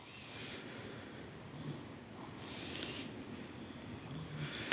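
Kitchen tongs tossing spaghetti with a beef and vegetable stir-fry in a pot: faint, soft, wet squelching and rustling of the food, with a light click or two.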